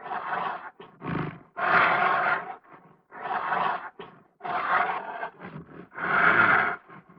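Bear growling and roaring in a series of about six rough, gravelly calls, each lasting up to a second, with short pauses between them.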